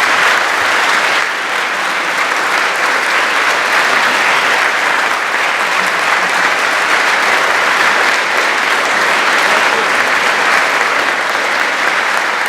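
A large crowd applauding steadily: a hearty round of applause.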